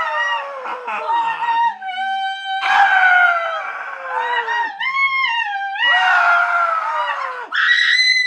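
A very high-pitched voice screaming in several long cries that slide downward in pitch, with one wavering cry and a long steady held note near the end.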